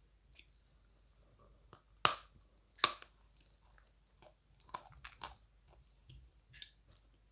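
A person biting into and chewing dry lumps of edible clay close to the microphone. Two sharp crunching bites come about two and three seconds in, then softer crunches as it is chewed.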